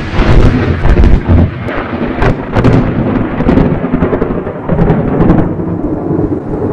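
Thunder from a lightning strike at close range: a loud, rolling rumble with several sharp cracks in the first three seconds, easing off a little after about five and a half seconds.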